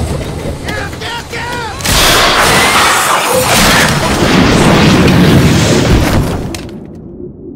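Oil well gas blowout: a sudden loud rushing blast about two seconds in that runs for several seconds, then the sound cuts off abruptly to a muffled low rumble near the end.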